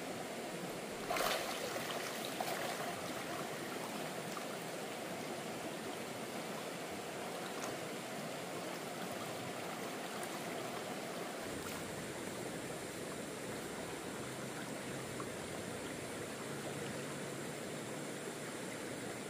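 Steady rushing of a flowing stream, with a brief louder clatter about a second in and a smaller one shortly after.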